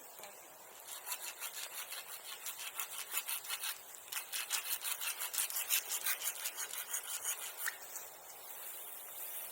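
Hand saw cutting through wood with quick, even back-and-forth strokes, about four a second, starting about a second in and stopping near the end.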